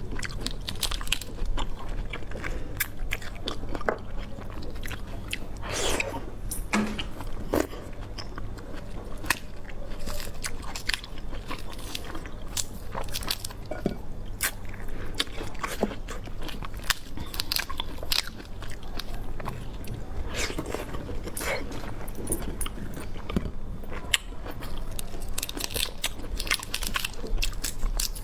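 Close-miked eating: someone repeatedly biting and chewing food, with many short crisp crunches and crackles.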